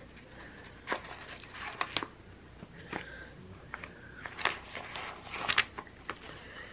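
Sticker sheets being handled and shuffled over a planner: scattered paper crinkles and light taps, a handful of short sharp rustles spread through.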